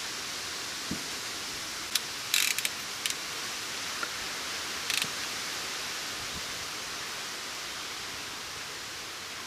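Steady background hiss with a few sharp metallic clicks and clinks, a quick cluster about two and a half seconds in and another near five seconds: hand tools at work while a spark plug is taken out of the engine.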